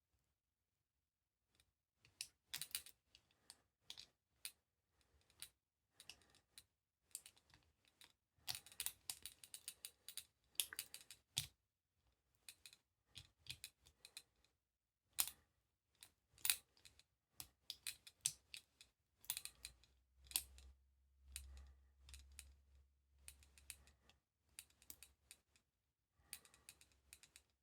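Small, sparse metallic clicks and scrapes of a pick wire and ground-down key tensioner working the levers inside a Squire 660 four-lever padlock, with a quick run of clicks about a third of the way in.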